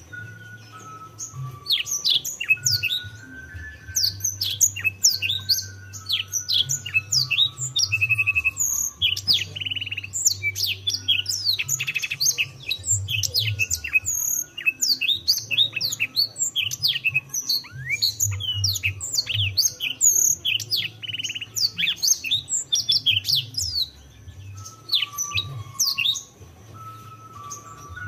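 Canary singing a fast, continuous song of quick downward-sweeping notes, with buzzing trills about 8 and 10 seconds in; the song starts about two seconds in and thins out near the end.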